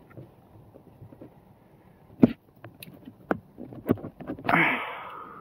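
A few sharp clicks and knocks as a Cummins fuel control actuator is pushed and wiggled by hand into its bore on the fuel pump, its O-ring not seating. Near the end there is a brief rushing noise that fades away.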